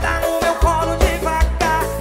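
Live concert music through a large PA: a strong, regular bass beat under a bending melodic lead line.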